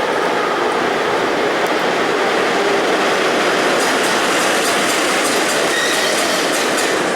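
A passenger train's coaches passing close by at speed: a steady rumble of wheels on rail, with a rhythmic clickety-clack of wheels over the rail joints that stands out more clearly in the second half.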